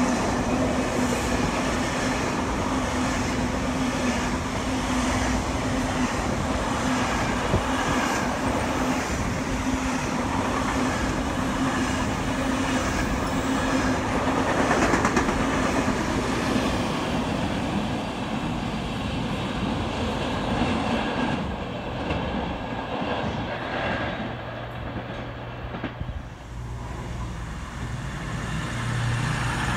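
A train running past on the rails, its wheels clattering with a steady tone over the top; the sound fades away over the second half, and a low engine drone comes in near the end.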